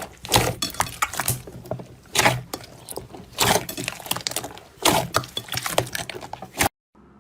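Slime being squeezed and worked by hand, giving irregular crackling and clicking, which cuts off suddenly near the end.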